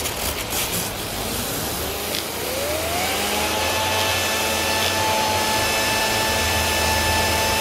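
Garden hose spray hissing steadily through a 3D-printed skateboard-bearing cleaner, while the assembly spins up under the jet with a whine that rises in pitch over about two seconds and then holds steady. Only the centre bearing is spinning; the smaller bearings stay still.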